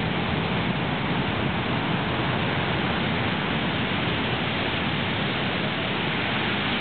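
Heavy ocean surf breaking, a steady, even rush of noise with no single wave crash standing out.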